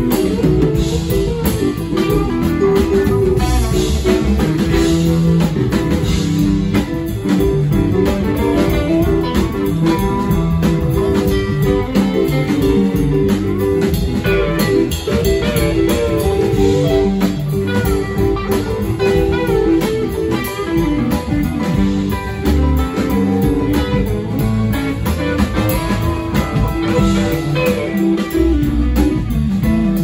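Live band playing a blues-jazz groove: electric guitar lead over keyboards and a drum kit.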